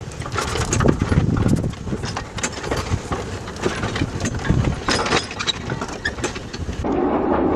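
Replica of the Stockton & Darlington Locomotion No. 1, an early four-wheeled steam locomotive, moving slowly with irregular clanks and knocks from its motion and occasional low exhaust chuffs. Near the end a steadier running rumble takes over.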